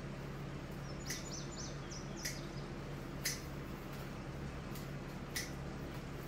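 Hand shears snipping the green tops off cured onions: four sharp snips at irregular intervals, over a steady low hum. A short run of high bird chirps comes about a second in.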